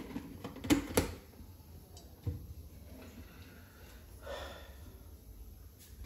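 Oil heating in an aluminium kadai on a gas burner: a few light ticks and clicks, two close together about a second in and another after two seconds, over a low steady hum.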